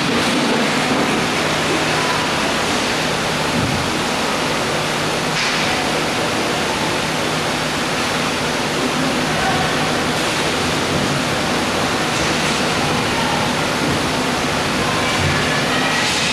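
Steady, loud, hiss-like din of an indoor roller hockey rink during play, with a few brief higher swishes from skates or sticks on the court.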